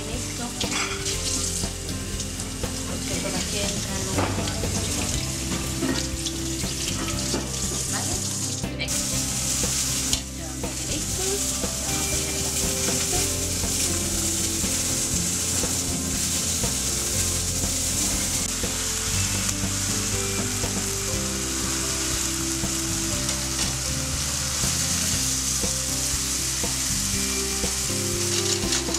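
Sliced wild mushrooms sizzling as they fry in oil in a frying pan, with a short break about nine seconds in and a fuller, steady sizzle after it.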